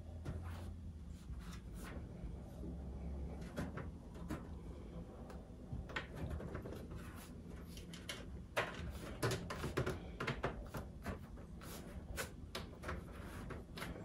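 A cat's paws and claws tapping and scratching at a microwave oven's casing and door edge while trying to pry it open: a string of irregular clicks and knocks, busiest a little past halfway. A low hum sounds under the first few seconds.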